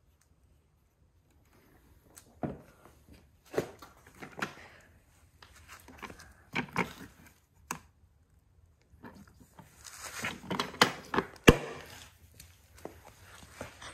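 Plastic tool cases being closed by hand: a series of knocks and rattles as the lids are pushed shut and the latches snapped down, with the loudest, sharpest click near the end.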